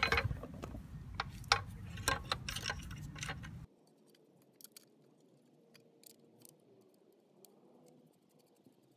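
Metal clicks and clinks as a motorcycle's metal skid plate is handled and fitted up under the engine, over a low handling rumble. A little over three and a half seconds in the sound drops suddenly, leaving only a few faint clicks.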